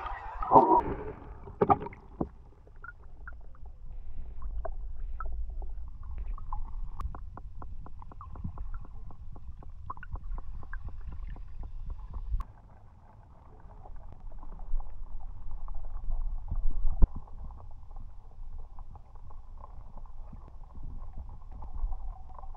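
Underwater sound picked up by a submerged camera in a river pool: a muffled rumble of moving water with many small clicks and crackles. A few seconds of bubbling and splashing from a swimmer come in the first two seconds.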